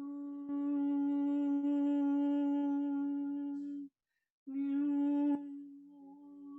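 A woman's voice humming one long, steady note with a rich, buzzy tone. It breaks off for about half a second around four seconds in, then resumes on the same pitch and gets quieter a little past five seconds.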